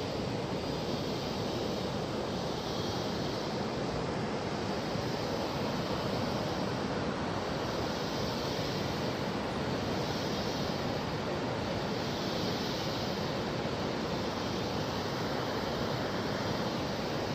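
Steady rushing roar of La Fortuna Waterfall, a 70-metre fall, carrying to a viewpoint above it, with the hiss swelling gently every few seconds.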